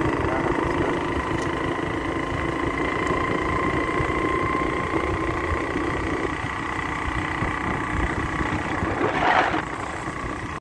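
Motorcycle engine running steadily as the bike is ridden, with a rumble of road and wind noise; the engine tone drops slightly about six seconds in. A short rush of noise comes about nine seconds in.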